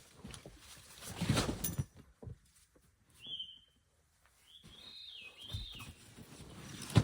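A songbird calling: one short whistled note about three seconds in, then a longer warbling phrase. A loud rustling noise comes about a second in, and a sharp thump comes right at the end.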